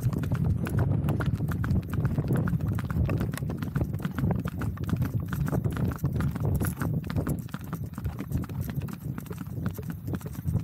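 Horse's shod hooves clip-clopping steadily on an asphalt road, heard from the saddle.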